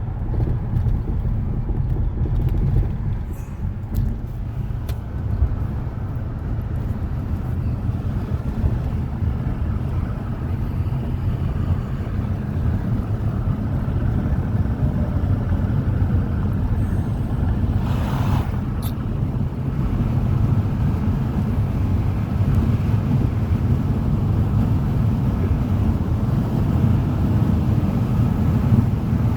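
Car interior road and engine noise while driving: a steady low rumble, with a brief hiss about eighteen seconds in.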